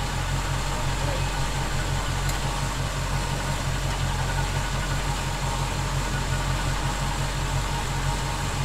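1971 Chevy C10 pickup engine idling steadily.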